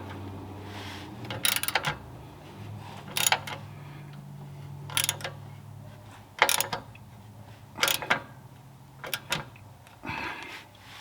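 Ratchet wrench tightening a downpipe bracket bolt: short bursts of metal clicking about every one and a half seconds, over a low steady hum.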